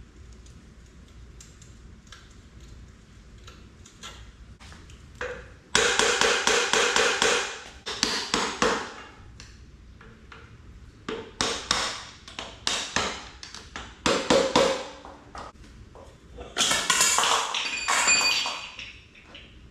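A wrench tool working the motorcycle's front-end bolts: light scattered clicks, then several loud bursts of rapid metallic clicking, each one to three seconds long.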